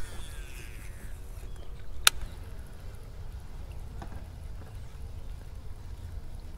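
Handling noise in a kayak: a low steady rumble with a single sharp knock about two seconds in, and a few faint ticks.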